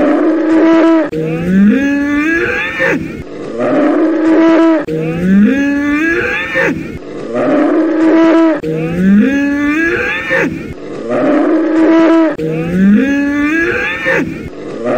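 A bull bellowing over and over, about one call every two seconds. Each bellow rises in pitch and then holds steady.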